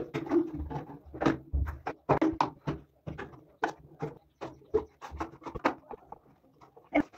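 Plastic shampoo and conditioner bottles set down and shifted on a tiled shower niche shelf: an irregular run of short knocks and clacks, a few a second.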